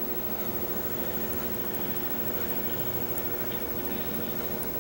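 Steady background hum and hiss, with a few faint, scattered ticks.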